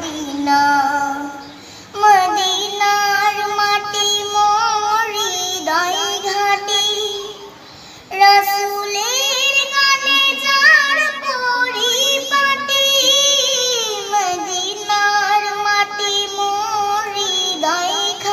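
A young girl singing a Bengali Islamic gojol (devotional song) solo, holding long notes that waver in pitch. The singing breaks off briefly about two seconds in and again about eight seconds in.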